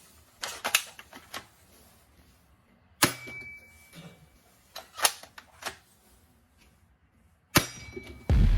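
Sharp clicks and knocks of plastic toy pieces and packaging being handled, with two louder snaps about three seconds and seven and a half seconds in.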